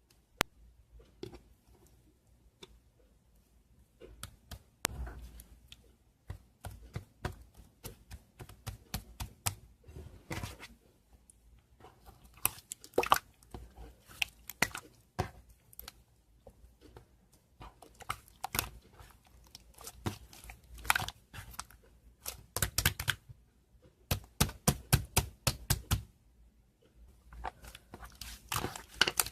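Close, irregular crackling and crinkling clicks that come in clusters, starting a few seconds in after a single sharp click right at the start.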